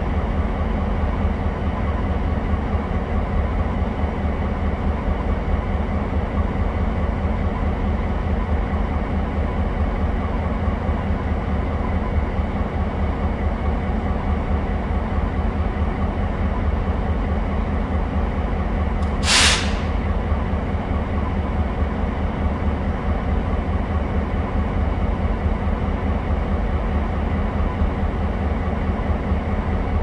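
Three diesel locomotives idling together, a steady low engine drone, with one brief loud hiss about two-thirds of the way through.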